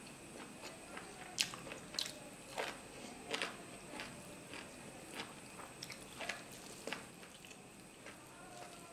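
Close-miked chewing: wet smacks and clicks of a mouthful of mutton curry and rice, irregular and louder in the first few seconds.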